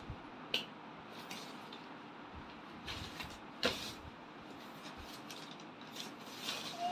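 Faint rustling of paper as a small child flips and handles the pages of a glossy magazine, with a few sharper crackles.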